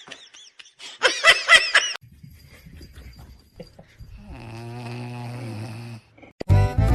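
A springy cartoon "boing" effect of quickly repeating pitch arcs about a second in. Later a low, steady, buzzing snore-like sound from a pet lasts about two seconds.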